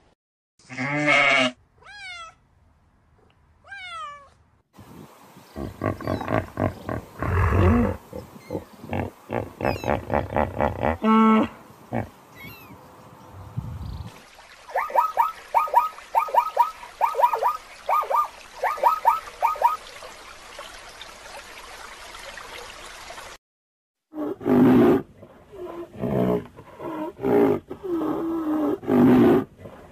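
Several different animal calls follow one another, with abrupt cuts between clips: short pitched calls and chirps, a run of rhythmic pulsing calls, a series of quick repeated notes, then pulsing low calls after a brief gap.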